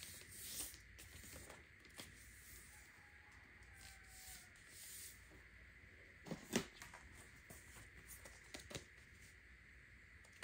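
Faint handling of an iPad Pro and its case: soft rubbing and rustling, broken by a few sharp clicks and knocks, the loudest a quick pair about six and a half seconds in.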